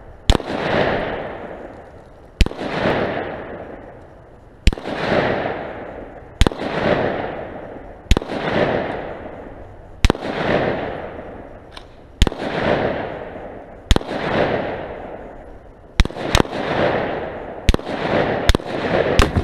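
Single 5.56 mm rifle shots, about a dozen, each followed by a long rolling echo. They come roughly every two seconds, then faster near the end.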